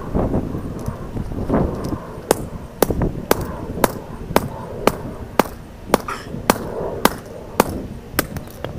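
Sledgehammer repeatedly striking a combination padlock, sharp metal-on-metal blows about two a second in a steady run, after a few duller knocks at the start.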